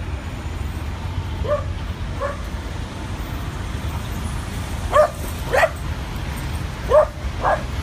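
Dog barking: two faint short barks, then four sharp short barks in two pairs about five and seven seconds in. A steady low rumble of road traffic runs underneath.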